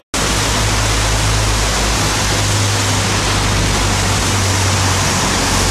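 Steady hiss of rain with a low rumble underneath, starting just after a split-second dropout.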